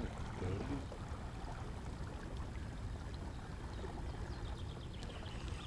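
Faint, steady sound of river water lapping and trickling around an inflatable fishing boat, with a low rumble underneath.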